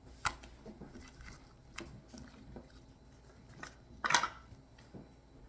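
Elmer's glue slime being spread out and pressed flat by hand: faint sticky squishes and small clicks, with one louder snap about four seconds in.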